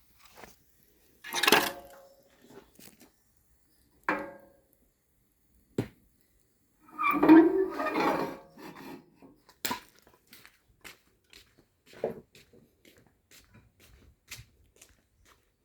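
Firewood knocking and clattering: separate wooden knocks, a longer clatter about seven seconds in, and light ticks between.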